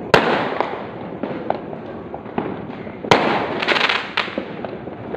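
Fireworks going off as a dense, continuous crackle of many small bangs. Two louder sharp bangs stand out, just after the start and about three seconds in.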